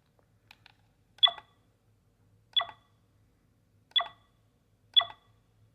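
Four short electronic beeps from a digital camera's buttons, about a second and a half apart, each confirming a button press while the date and time are set in its menu. A few faint button clicks come before the first beep.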